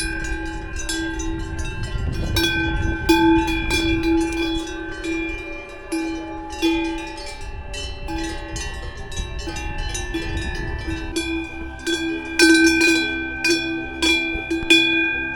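Many cowbells clanking irregularly, their ringing tones overlapping at several different pitches, as cattle graze and move about.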